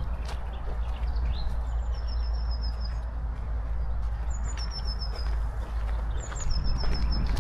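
A small songbird singing the same short, high phrase three times, about every two seconds: a single higher note followed by a quick, evenly spaced run of thin notes, over a steady low rumble of wind on the microphone.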